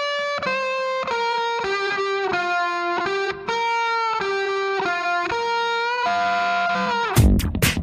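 Background music: a melody of held notes, changing about twice a second, with the drums dropped out; the beat comes back near the end.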